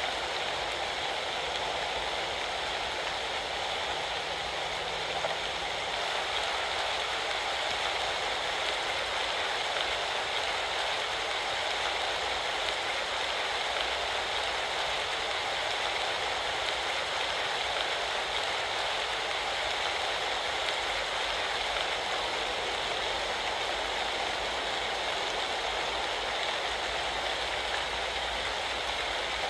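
Steady heavy rain of an autumn rain storm falling without a break.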